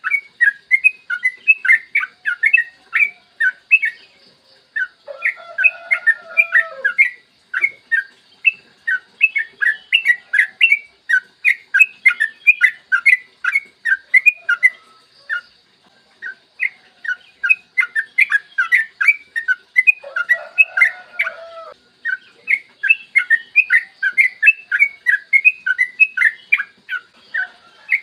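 Sooty-headed bulbul singing in long, rapid runs of short notes, several a second, broken by brief pauses. A lower, warbling call comes in twice, about five seconds in and again about twenty seconds in.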